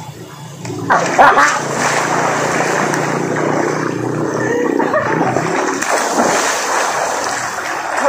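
A swimmer drops into a river pool with a sudden splash about a second in, followed by continuous splashing and churning water as several swimmers thrash about.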